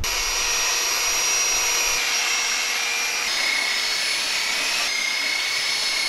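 Electric belt sander running steadily as it sands a wooden shelf board, a constant motor whine whose pitch shifts a little twice as the sander is worked.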